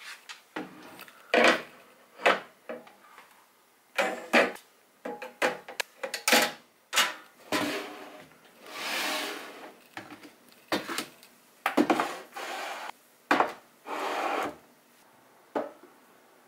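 Plastic storage canisters and bottles being set down and slid into place on a kitchen cabinet shelf: a string of short knocks and clacks with a few longer scraping slides, the longest about nine seconds in.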